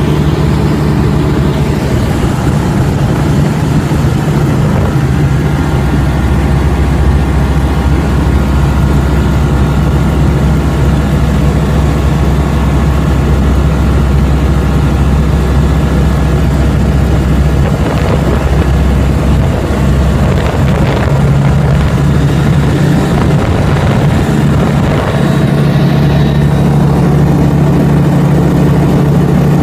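Single-engine light aircraft's engine and propeller drone, loud and steady, heard from inside the cabin.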